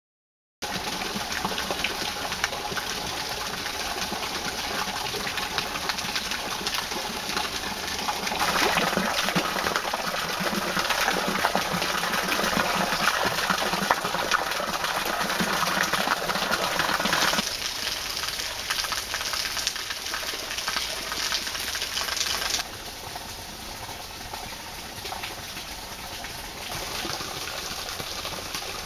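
Thin stream of water at a small shrine waterfall falling onto stone and splashing, a steady rushing sound that starts about half a second in. It grows louder about eight seconds in and drops back twice later on.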